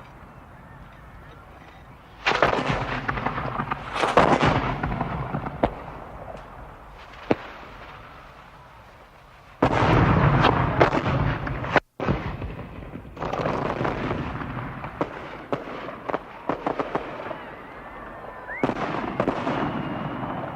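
Explosion and gunfire sound effects: a series of loud blasts, each with a long rumbling decay, with sharp single gunshots and quick clusters of shots in between. The sound cuts out abruptly for a moment about 12 seconds in.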